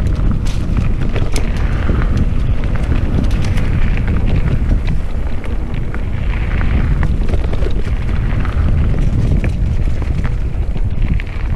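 Wind buffeting the microphone while a mountain bike rides a dirt trail: a steady low rumble from the tyres, with scattered clicks and rattles from the bike over bumps.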